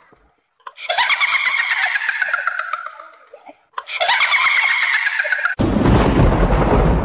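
Edited-in comic sound effects: two long, squealing tones that each slide downward in pitch, then, about five and a half seconds in, a loud, rough, bass-heavy blast lasting under two seconds.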